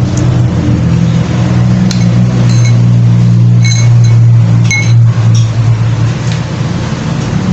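A steady low hum throughout, with about five light, ringing clinks in the middle: a metal spoon knocking against a glass soup bowl.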